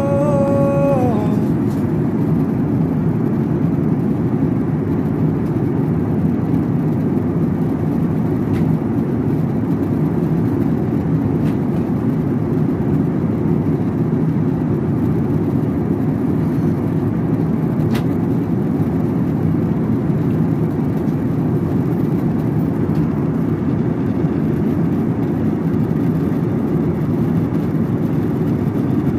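Jet airliner cabin noise in cruise flight: a steady, unchanging low rush of engine and airflow noise.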